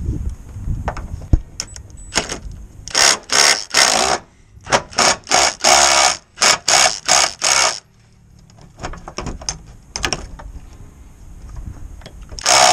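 Cordless impact driver hammering in a string of short bursts, about ten between three and eight seconds in and a few more near the end, as it works the fuel tank's mounting bolts.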